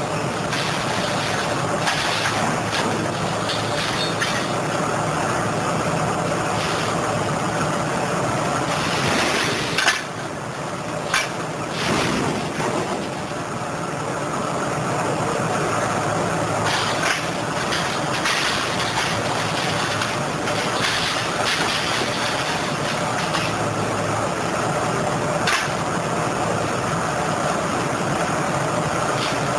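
Diesel engine and hydraulics of a Liebherr 904 wheeled material handler working a scrap grapple, a steady running drone. A few sharp clanks of scrap metal break through, the loudest about ten seconds in.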